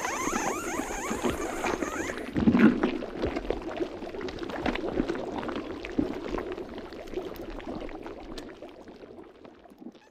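Wet gurgling and sloshing sound effect, loudest about two and a half seconds in, then fading away to silence at the end.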